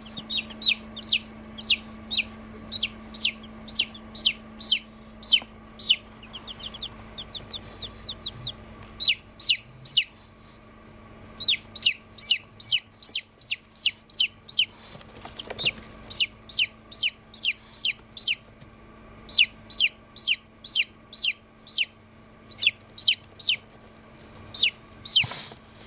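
Newly hatched chicks peeping: high, downward-sliding peeps, about three a second, in long runs with short breaks. A steady low hum runs underneath, and there is a brief rustle near the end.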